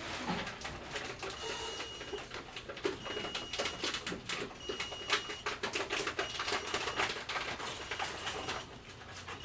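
Grocery store bottle return machine running: busy irregular clattering and clicking, with a high thin tone that sounds on and off about every second and a half.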